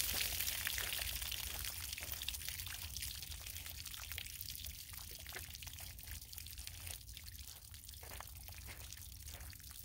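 Water pouring and splashing from bullet-holed plastic gallon jugs onto the ground, loudest at first and dwindling to a trickle and scattered drips.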